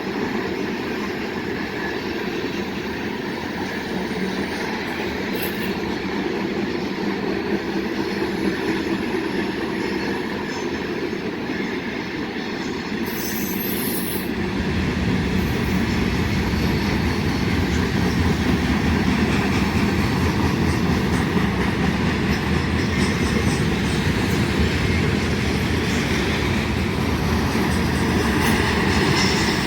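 Freight train rolling past, steel wheels running on the rails in a steady rumble that grows louder and heavier about halfway through.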